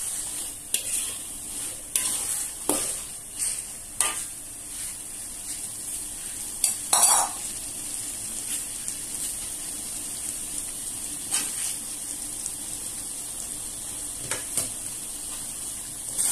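Stir-frying in a wok: a spatula scraping and knocking against the pan over a steady sizzle of sauce-coated sausages, fish balls and vegetables. There are frequent scrapes early on, one louder clatter about seven seconds in, then mostly sizzling with a few scrapes.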